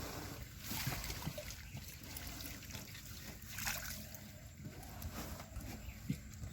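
Water trickling and sloshing, with brief louder splashes about a second in and again near the middle.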